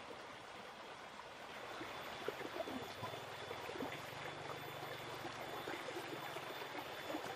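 Shallow rocky stream flowing: a steady, faint rush of water.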